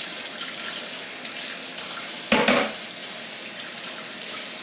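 Water running steadily from a kitchen faucet into a stainless steel sink and splashing over a paint roller frame being rinsed by hand, with one sharp knock a little over two seconds in.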